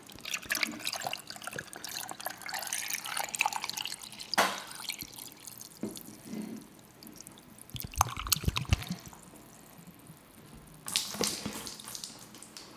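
Water and ice shaken in an upturned Stanley tumbler, with scattered clinks and splashes and water dripping from the lid.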